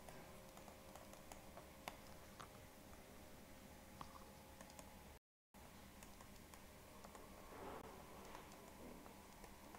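Near silence with a few faint, sparse clicks and taps of a stylus on a tablet during handwriting, over a faint steady electrical hum. The sound cuts out completely for a moment a little after five seconds in.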